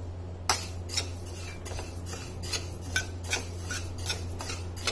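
A spoon stirring and scraping fenugreek and black mustard seeds around a steel pan as they dry-roast, giving irregular clicks and scrapes several times a second over a steady low hum.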